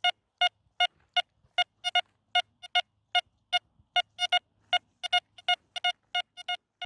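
A rapid series of short electronic beeps, all at one pitch, about three to four a second and unevenly spaced, some in quick pairs, with dead silence between them.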